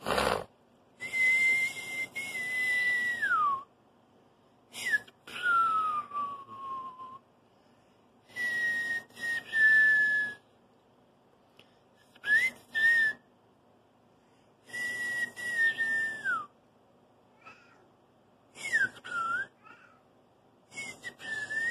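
A person whistling a string of about seven notes with pauses between: mostly long, steady notes that slide down in pitch at the end, with a breathy hiss on each. A short knock sounds right at the start.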